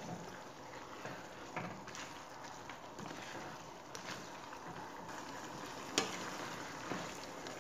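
Chicken chilli in a cornflour-thickened sauce sizzling in a non-stick wok as a plastic spatula stirs it, with a steady hiss and a few light knocks of the spatula against the pan, the sharpest about six seconds in.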